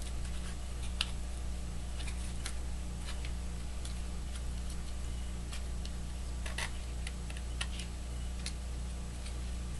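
Scattered light clicks and taps from glass mirror strips bound with masking tape being handled and adjusted, irregularly spaced, the sharpest about a second in. A steady low electrical hum sits underneath.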